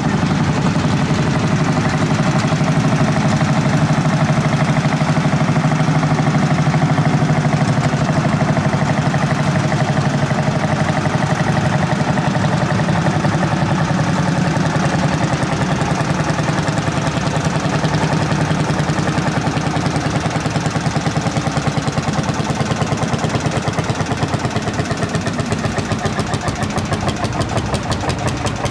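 Vintage tractor engine running under load as it pulls a weight-transfer sled, with a steady rapid exhaust beat. Near the end the individual firing pulses become slower and stand out more.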